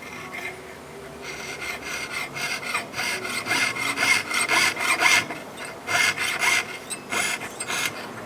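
Fine jeweller's saw cutting the openwork pattern in a 1.5 mm 18K gold plate: a quick run of short, rasping back-and-forth strokes that builds up about a second in, is loudest in the middle, pauses briefly and ends in a few last strokes.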